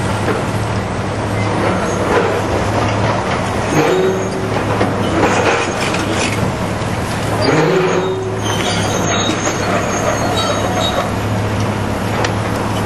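Heavy demolition machinery: a diesel engine running steadily, with short metal squeals about four seconds in and again at about seven and a half seconds, and crunching as the stadium structure is torn down.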